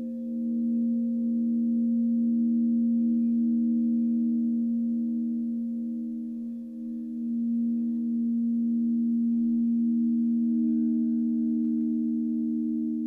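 Crystal singing bowls sung by a mallet circling the rim, several steady pure tones sounding together with a slow pulsing waver. The sound swells, dips briefly about halfway through, then swells again.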